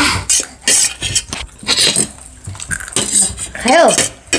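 Metal spoon clinking and scraping on a stainless steel plate, a run of short sharp clinks.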